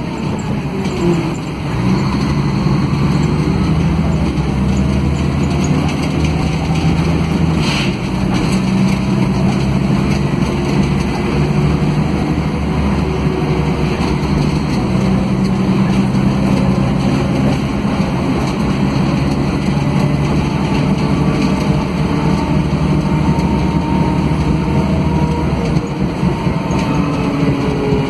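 Mercedes-Benz OM457LA six-cylinder diesel of an O500 UA articulated bus running under way through its ZF Ecomat automatic gearbox, heard from inside the passenger cabin over road and body noise. The engine note steps up and down a few times, and a rising whine comes in near the end.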